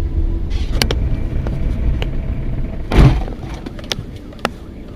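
Low rumble of a car's engine and tyres heard from inside the cabin while driving slowly on a snowy street. About three seconds in there is one loud thump, after which the rumble goes quieter.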